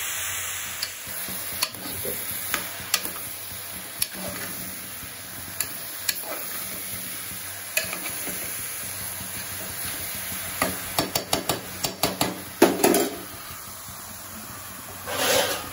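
Diced ridge gourd and drumstick pieces sizzling in oil in an aluminium pot while a metal spoon stirs them, with scattered clinks and scrapes of the spoon on the pot. The clinks come thickest from about ten to thirteen seconds in, and a louder metal clatter comes near the end.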